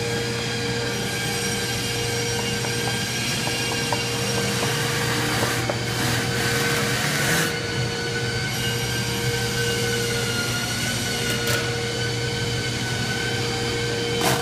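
Steady factory machinery noise in a cabinet-making shop: a continuous hum with several steady whining tones over it, and a hiss lasting about two seconds around six seconds in, with shorter hisses later.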